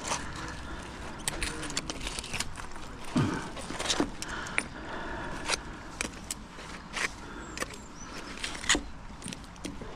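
Thin rusty metal rods clinking and scraping against a neodymium fishing magnet and each other as they are pulled off by hand, in a string of irregular sharp clicks.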